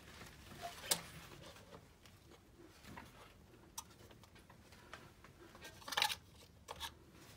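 A few separate light clicks and taps of metal parts and hand tools being handled: one about a second in, and a louder cluster around six seconds.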